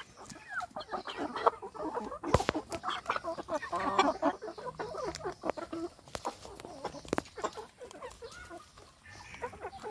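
A flock of chickens clucking in many short overlapping calls while pecking at feed, with a few sharp knocks among them.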